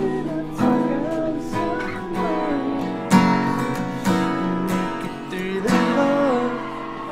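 Acoustic guitar strummed in chords, with a man singing along over it; the loudest strum comes about three seconds in.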